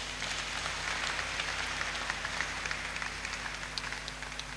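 Congregation applauding, a dense patter of many hands clapping that gradually dies down.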